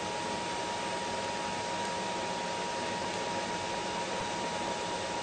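TIG welding arc on steel flat bar from a Miller Multimatic 220 AC/DC, a steady even hiss with a faint steady high tone under it.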